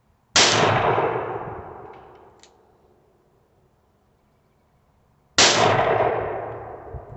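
Two revolver shots with .38 Special rounds, about five seconds apart, each sharp report dying away over a second or two.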